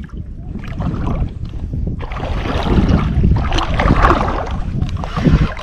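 Wind buffeting the microphone in a heavy low rumble, with a wider rushing noise that swells for about three seconds in the middle.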